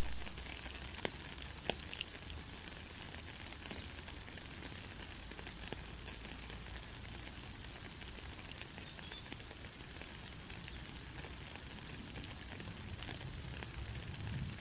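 Steady white-noise hiss with faint scattered crackles and ticks, played as a sleep sound for a baby.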